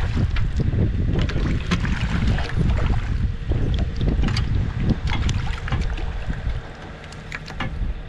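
Wind rumbling on the microphone, with splashing and sharp knocks as a hooked smallmouth bass thrashes at the boatside and is landed with a net. The wind rumble eases off near the end.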